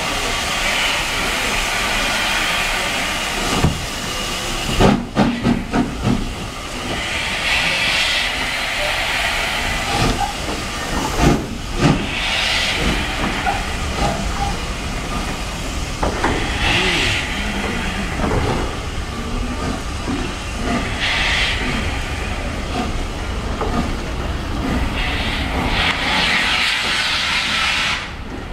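Southern Railway S15 4-6-0 steam locomotive No. 825 pulling away with its coaches: steam hissing, swelling and fading every few seconds. A run of clanks and knocks comes about five seconds in and again about eleven seconds in.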